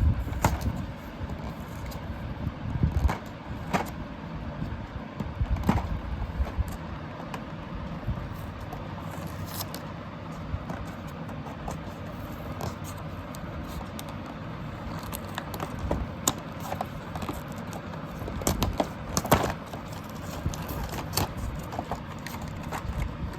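Cardboard and plastic packaging of a Hot Wheels five-pack being handled and opened by hand: irregular scraping, crinkling and clicking, with a sharper click about 19 seconds in.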